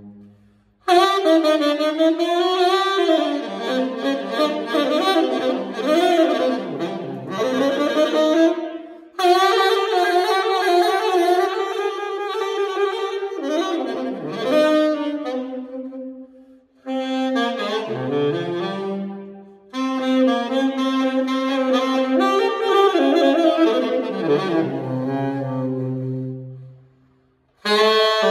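Amati Toneking tenor saxophone fitted with a Berg Larsen 105/0 duckbill mouthpiece and a very cheap Chinese reed, played solo. It plays a free melodic line in several phrases broken by short pauses, with notes sliding up and down between pitches.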